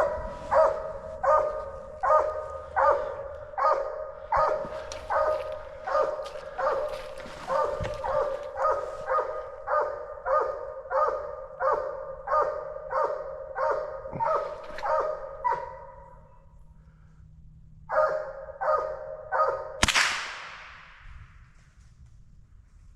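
Coonhounds barking treed, a steady run of chop barks one to two a second, then, after a short pause, three more barks. Near the end comes a single sharp rifle shot that rings out briefly.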